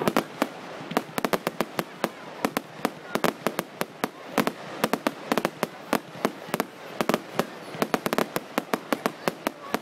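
Aerial fireworks bursting: a rapid, irregular run of sharp bangs and cracks, several a second.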